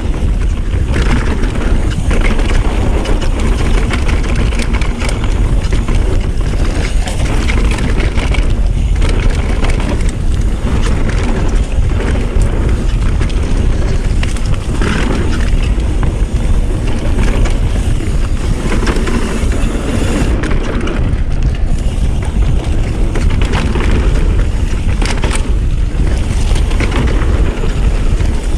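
Wind rushing over the microphone of a mountain bike rider descending a dirt trail at speed, with the rumble of the tyres on the dirt and scattered clattering of the bike over bumps.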